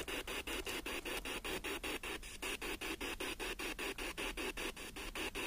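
Radio static from a speaker doing a spirit-box style radio scan, the hiss chopped into quick even pulses, about five a second, as it sweeps.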